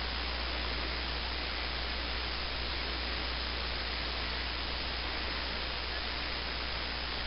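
Steady, even hiss over a low hum, with no gusts or events: background noise picked up by the camera's own microphone.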